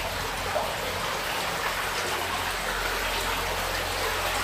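Shallow stream, King's Beck, running over stones along the floor of a stone-arched tunnel: a steady rush of flowing water.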